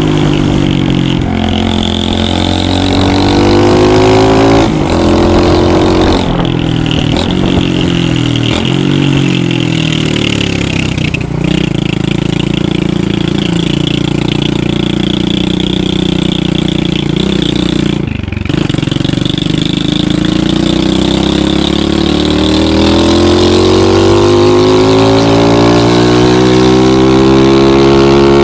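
Lifan 125cc pit bike's single-cylinder four-stroke engine revving under way, its pitch climbing and dropping repeatedly as the throttle and gears change. There is a brief throttle-off about eighteen seconds in, and a long climb near the end.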